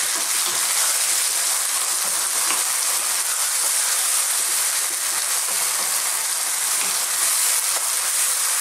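Chicken, mushrooms and chopped tinned plum tomatoes sizzling in a hot frying pan with a steady hiss, a wooden spoon stirring them through.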